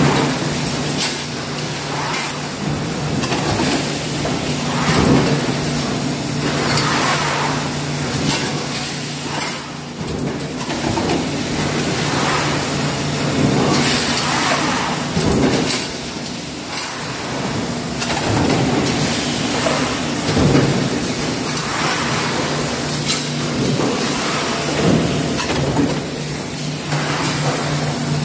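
A line of mechanical stamping presses working sheet metal: a steady machine hum with sharp press strokes and metal clatter every second or two, irregularly spaced because several presses run at once.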